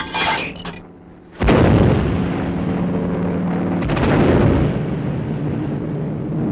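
Anti-aircraft gunfire and explosions: a sudden loud blast about a second and a half in, trailing into a long rumble, then another blast near four seconds, over a steady low drone.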